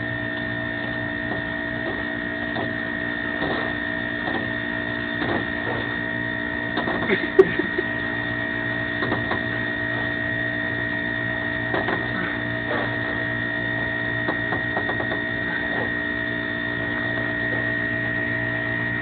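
A steady machine hum made of several fixed tones, with scattered light knocks and one sharp knock about seven seconds in.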